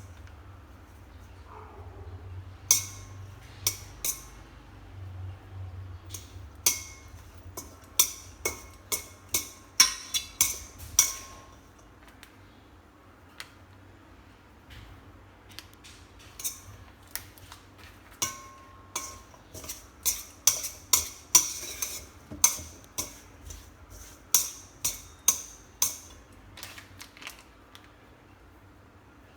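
Utensils clinking and knocking against a bowl as sliced pig ear is tossed with toasted rice powder: many sharp, irregular taps, with a lull of a few seconds midway.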